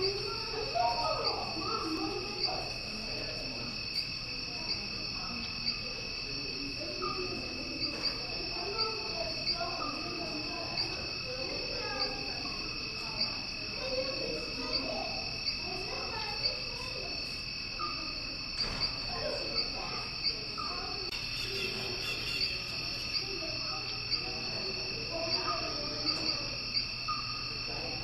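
Crickets chirping steadily: a continuous high-pitched trill with regular short chirps, over a low, indistinct background murmur.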